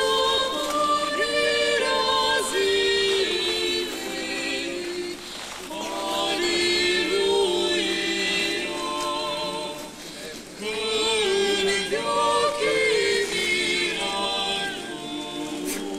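Unaccompanied choir singing an Orthodox liturgical hymn in several voices, with long held, wavering notes and brief breaks between phrases.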